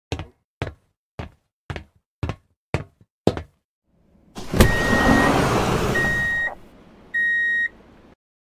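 Sci-fi door sound effects: seven heavy hits at about two a second, then a sharp bang and a long hiss like a sliding door opening, with three electronic beeps.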